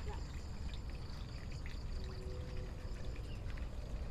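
Faint, steady trickle of water in a tarpaulin frog-rearing tank.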